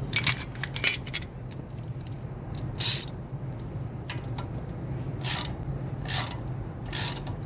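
Metal clinks and short scraping bursts of a 17 mm wrench working the brake caliper's guide-pin bolt as it is screwed in, over a steady low hum.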